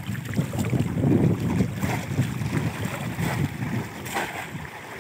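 Shallow muddy water sloshing and splashing as people wade and plunge bamboo cone fish traps into it, with wind rumbling on the microphone.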